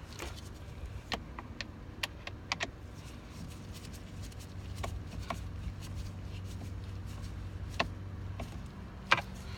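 Scattered light clicks and taps of hands handling plastic steering-column trim and screws, over a steady low hum.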